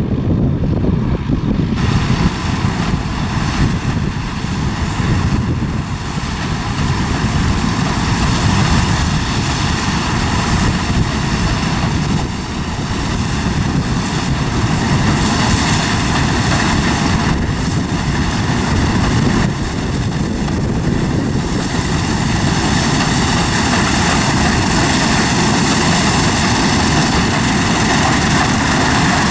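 New Holland combine harvester running steadily while cutting rapeseed, a dense machine noise with a steady whine in it that grows brighter and fuller as the combine draws closer.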